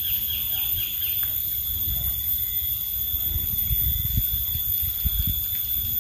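Outdoor riverside ambience: a steady high-pitched insect drone, with a bird giving a quick run of about six falling chirps in the first second, and occasional low bumps.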